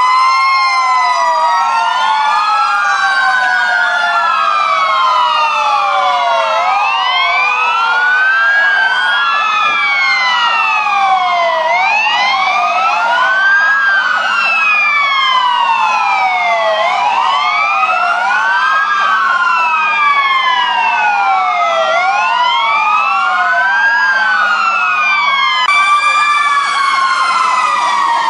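Several fire-engine sirens wailing at once, out of step with one another, their pitches rising and falling over each other, over a faint steady low hum.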